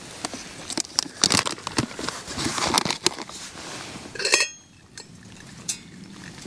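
Gas camping stove burning under a metal pot of water at a rolling boil, with scattered clinks of metal being handled. About four seconds in there is a loud metallic clink with a short ring, and the burner's hiss cuts off suddenly as the stove is shut off.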